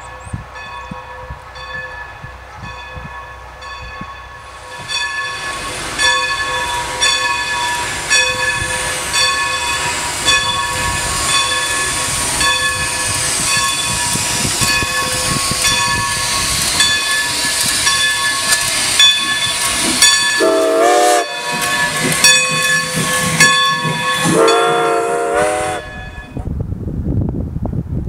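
Steam locomotive passing close by, its bell ringing steadily at about two strokes a second while steam hisses loudly from about five seconds in. Its steam whistle sounds twice near the end, a short blast then a longer one, before the sound cuts to wind noise.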